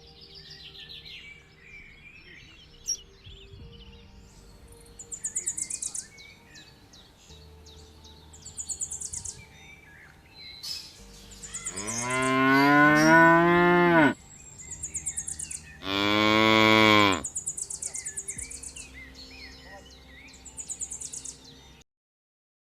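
A bovine animal mooing twice: a long low moo that rises and then falls in pitch, then a shorter, steadier one. Short, high buzzy chirps repeat in the background, and the sound cuts off abruptly near the end.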